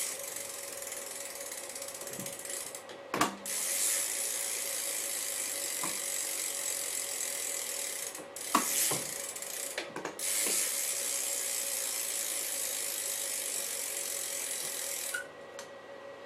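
Rear hub of a 2012 DK Cygnus BMX bike buzzing with a fast, even ratchet clicking as the wheel is spun and coasts. This comes in four long runs, each set off by a short knock as the wheel is pushed again.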